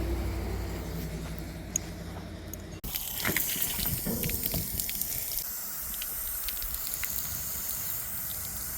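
Water running from a fresh-water fill spout into an RV's tank: a steady hiss with spattering, water gurgling back out and spilling. For the first three seconds a low engine hum fades under it before a sudden cut.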